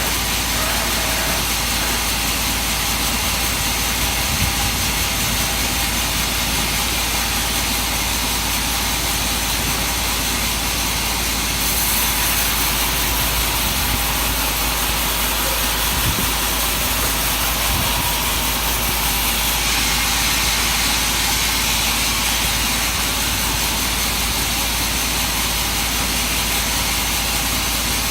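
Sawmill machinery running steadily while working suar (rain-tree) wood, a constant engine-and-saw noise. The sound turns hissier and brighter from about twelve seconds in, for several seconds.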